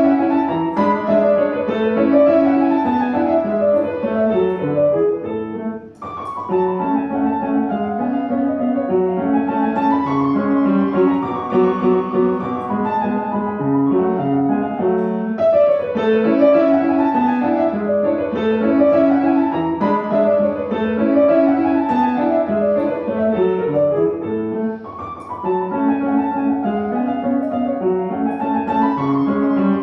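Solo piano playing a classical-style piece, with a short break between phrases about six seconds in and a quieter passage around 24 seconds in.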